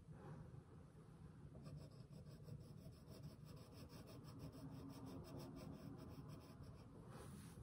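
Pencil scratching faintly on paper in quick, even back-and-forth strokes, shading a drawing; the strokes start about two seconds in and stop near the end.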